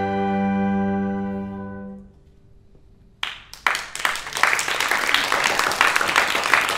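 An ensemble of violins, cello, brass and piano holds a final chord that dies away about two seconds in. After a short hush the audience starts applauding about three seconds in and keeps clapping.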